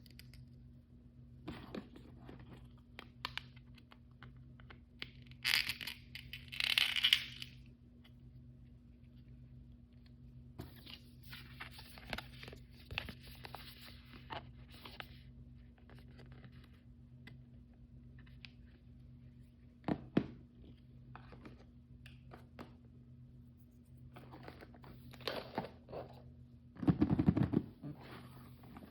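Plastic blind-bag packaging being torn open and handled. There are bursts of tearing and crinkling, the loudest about a quarter of the way in, with scattered small taps and a heavier knock near the end, over a faint steady hum.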